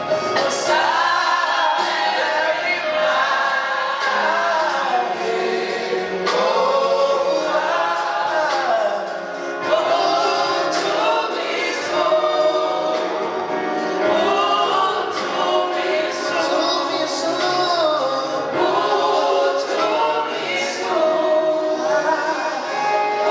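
Gospel choir singing live, over a steady percussive beat.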